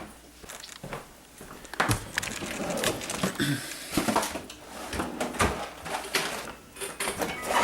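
A run of irregular knocks, clicks and rustling, like objects being handled and moved about in a small room, busier after about two seconds in.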